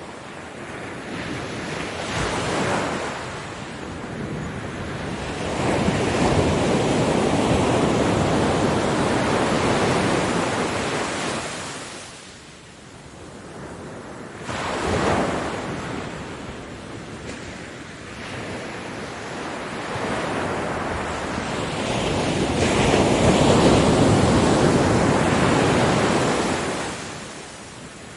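Ocean waves breaking on a beach, the surf surging in and washing back in slow swells: a long wash in the first half, a short sharp break about halfway through, and the loudest surge in the last third, fading near the end.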